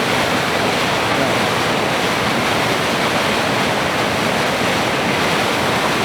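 Suryakund waterfall on the Bhagirathi river pouring heavily: a loud, steady, unbroken rush of falling water.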